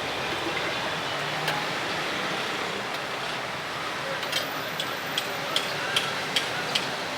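Steady street noise, with about seven sharp, evenly spaced taps of a utensil at the chaat stall in the second half.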